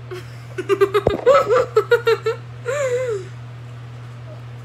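A girl laughing in a string of quick giggles with her mouth stuffed with marshmallows, then a short wavering hum of laughter about three seconds in.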